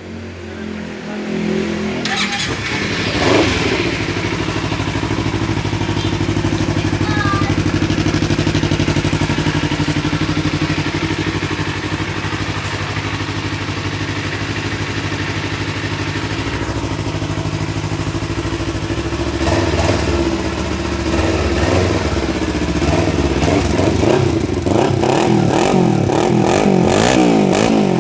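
Kawasaki Z300 parallel-twin motorcycle engine running through its stock exhaust pipe. It builds up over the first couple of seconds and idles steadily, then is revved repeatedly, pitch rising and falling, over the last several seconds.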